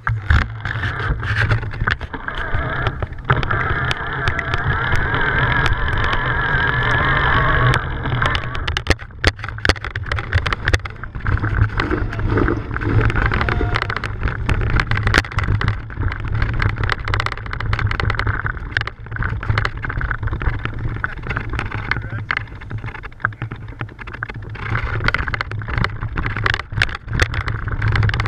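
Mountain bike riding over rough grass, heard from a bike-mounted camera: wind rumbling on the microphone and constant rattling and knocks of the bike and camera mount over the bumps.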